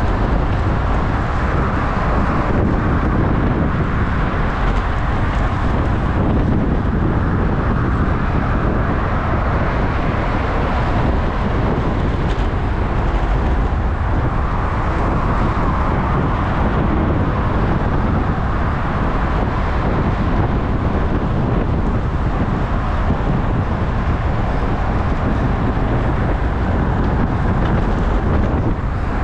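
Steady wind and road noise on a road bicycle riding at speed, with car traffic running alongside.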